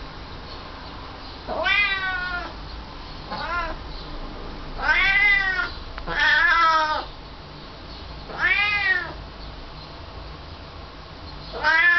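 Domestic cat meowing repeatedly: six drawn-out meows with pauses between them, each rising and then falling in pitch. The second meow is short and softer, and the last begins near the end.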